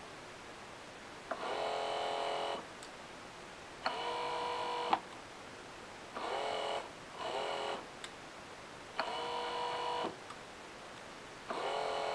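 1965 Cadillac rear power vent window motors being run on the bench in six short bursts, each a steady electric-motor whine of about half a second to a second.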